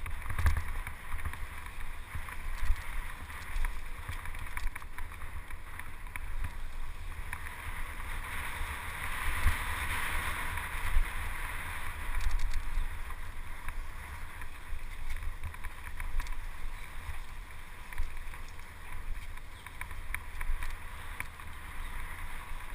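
Wind buffeting the microphone of a camera on a moving mountain bike, over the steady noise of tyres on dirt trail, with many short clicks and knocks as the bike goes over bumps.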